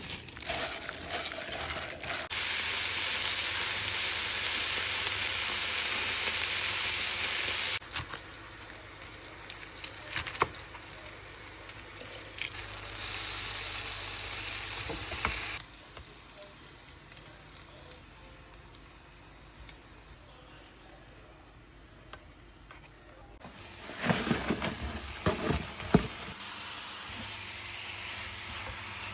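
Food sizzling in a hot pan across several abruptly cut clips, loudest and hissiest from about two to eight seconds in. Near the end, a few sharp knocks.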